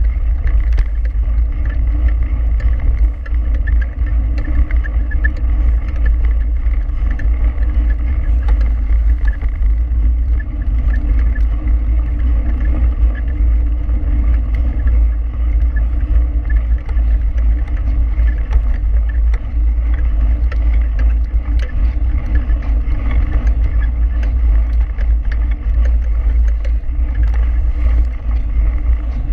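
Mountain bike rolling fast over a dirt track: a steady low rumble of wind buffeting the handlebar-mounted camera's microphone, mixed with tyre noise and small rattling ticks from the bike.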